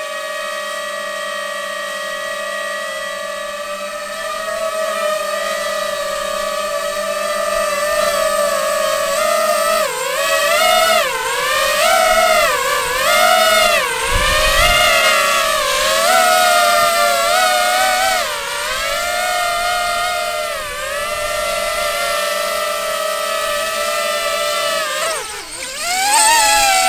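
DJI FPV drone with a GoPro mounted on top, its motors and propellers whining in a hover. The whine holds a steady pitch for about ten seconds, then swings up and down again and again as the throttle changes, and ends with a dip and a final rise.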